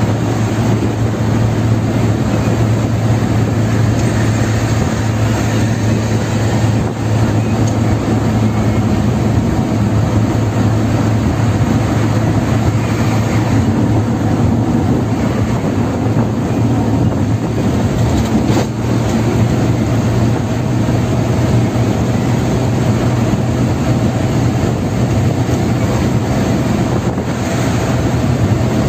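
A car driving at highway speed, heard from inside the cabin: a steady drone of road and engine noise with a constant low hum.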